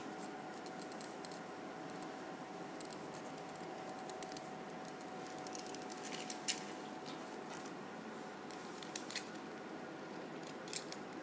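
Faint steady room hum with a few small clicks and taps as a stainless steel pepper mill is handled; the sharpest click comes about six and a half seconds in.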